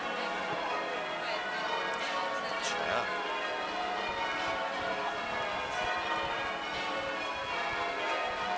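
Church bells change ringing: a peal of many bells sounding one after another in a continuous, steady stream of overlapping strokes.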